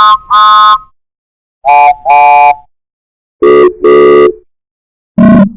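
Train whistle tooting in short-long pairs, four times, each pair lower in pitch than the last, so that the high whistle ends as a deep horn-like blast.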